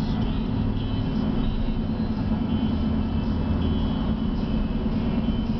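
Steady engine and road noise of a moving car, heard from inside the cabin, with a low hum and no sudden sounds.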